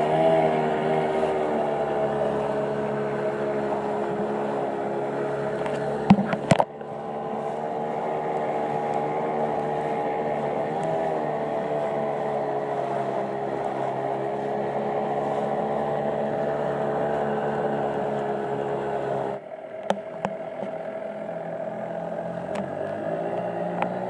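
Small outboard motor on a dinghy running steadily at cruising speed over choppy water. There is a brief clatter of knocks about six seconds in, and an abrupt drop in loudness a few seconds before the end.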